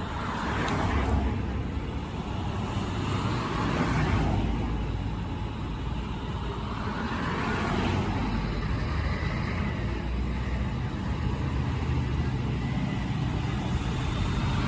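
Street traffic: cars passing one after another, each swelling and fading over a steady low rumble.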